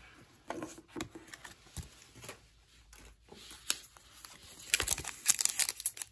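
Wrapper of an Upper Deck hockey card pack being torn open and crinkled by hand, loud and crackly near the end. Before it come a few soft taps and rustles of cards being handled.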